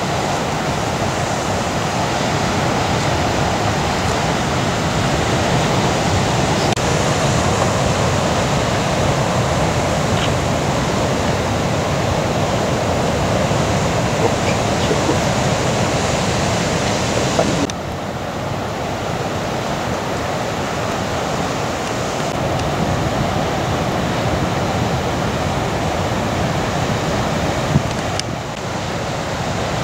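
Heavy ocean surf breaking, a steady rush of whitewater with no let-up, dropping a little in level about two-thirds of the way through.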